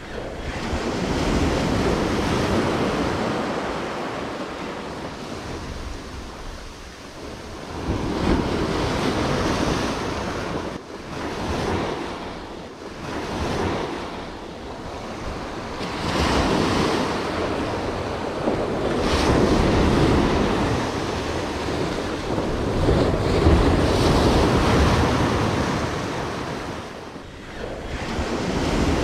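Surf breaking and washing over jetty rocks, swelling and falling back every few seconds, with wind buffeting the microphone.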